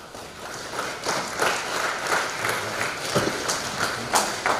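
Congregation applauding: many hands clapping together, swelling about a second in and then holding steady.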